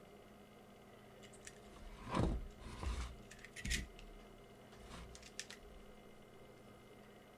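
A few short clicks, clatters and rustles of small objects being handled, loudest about two seconds in, then a few lighter ticks near the five-second mark.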